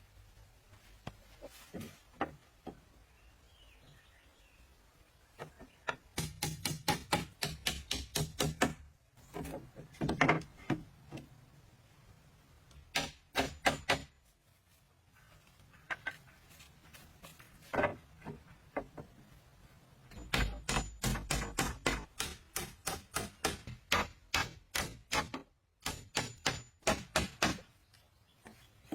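Hand tool striking wood in runs of quick, sharp knocks, about five a second, with pauses between the runs.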